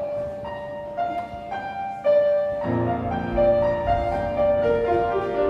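Piano playing the introduction to a choir anthem: a few single high notes struck one after another, then fuller chords with low bass notes joining a little after halfway.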